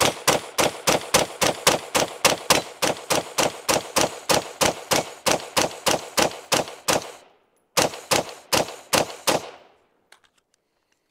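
PSA Sabre 15 AR-15 rifle firing 5.56 rounds in rapid semi-automatic fire, about four shots a second for some seven seconds. After a brief pause come about six more shots, and then the firing stops.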